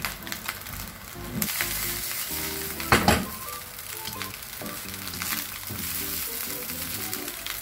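Vegetable fried rice sizzling in a hot wok on high flame while a wooden spatula stirs and tosses it, with one sharp knock about three seconds in.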